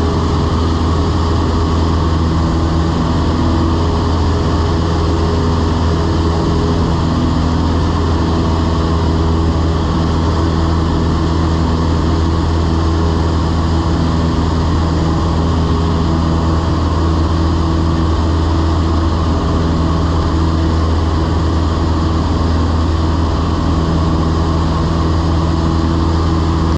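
Cessna 172's piston engine and propeller in steady cruise, heard from inside the cabin: a loud, even drone with a low hum and its overtones that holds one pitch throughout.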